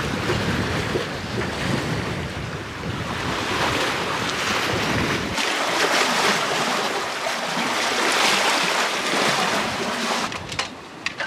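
Water rushing and splashing along the hull of a sailboat under sail, with wind buffeting the microphone. About five seconds in, the low wind rumble drops away and the hiss and splash of the bow wave is left.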